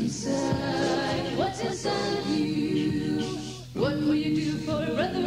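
Gospel song sung by a Christian vocal group, several voices singing together, with a short break between phrases about three-quarters of the way through.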